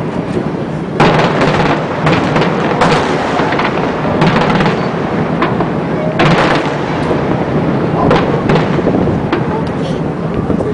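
Fireworks display, aerial shells bursting in a continuous barrage of booms and crackles, with especially sharp loud bursts about a second in and again about six seconds in.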